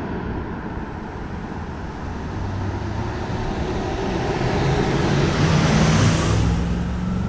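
An SUV drives past in the oncoming lane. Its engine and tyre noise swells to a peak about six seconds in, then fades, over a steady low rumble from riding along on a mobility scooter.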